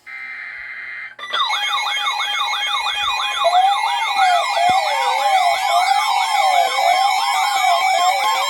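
An Emergency Alert System tone sequence. It opens with a short buzzy data-header burst, then from about a second in several electronic sirens play layered together: fast yelping pitch sweeps over a slower rising and falling wail, with steady high tones.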